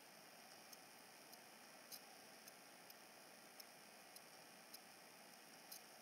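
Near silence: a faint steady hiss with soft, faint ticks about every half second.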